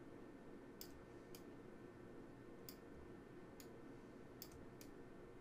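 Faint computer mouse clicks, about six of them at uneven intervals, over quiet room tone.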